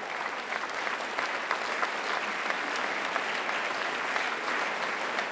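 Audience applauding steadily in a large hall: many hands clapping at once.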